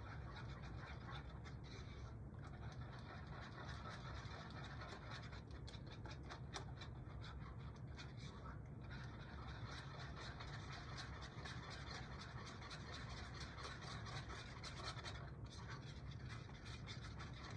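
Small whisk beating a thick peanut-butter sauce in a small bowl: a quick, even run of light scraping and clicking strokes against the bowl.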